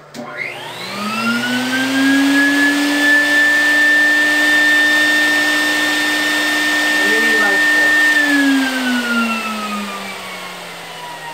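Fuji Spray Mini-Mite 4 four-stage HVLP turbine switched on: its whine rises as it spins up, runs steady for about six seconds, then falls in pitch as it is switched off and winds down.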